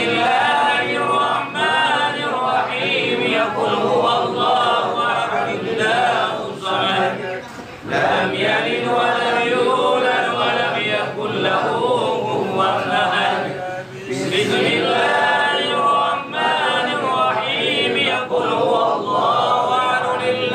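A group of men chanting a tahlil prayer recitation together, Arabic phrases sung in long melodic lines, with short breath pauses about eight and fourteen seconds in.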